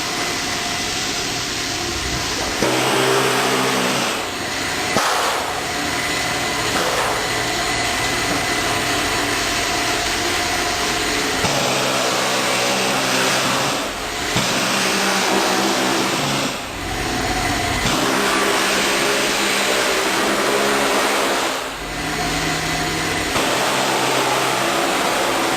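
A motor runs loudly and steadily with a pitched whine, easing off briefly several times.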